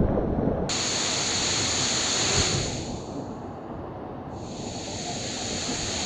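Waterfall pouring into a rock pool: a steady rush of falling water, a little softer for a couple of seconds around the middle.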